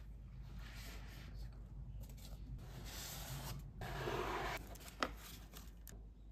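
A rigid cardboard perfume gift box being opened by hand: the lid slides off with a dry rubbing scrape, and the loudest scraping comes about four seconds in. A single sharp click follows about a second later.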